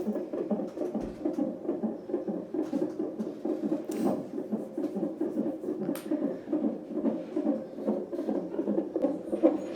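Fetal heartbeat through a CTG monitor's Doppler ultrasound: a fast, steady, rhythmic pulsing. Two faint clicks come through, about four seconds in and two seconds later.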